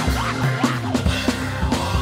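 Live band music: an electric bass holding low notes under a steady drum-kit beat.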